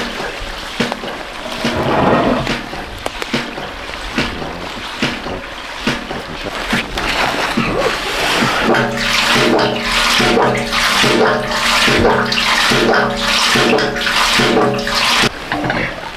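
Water gushing and splashing in the concrete chamber of an old hydraulic ram, with scattered clanks. From about nine seconds a steady rhythmic pulsing comes in, about one and a half beats a second with ringing tones, and it stops abruptly near the end.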